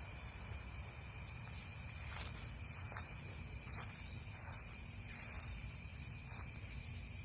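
Night insects, crickets, chirring steadily in several high pitches, with a few faint knocks.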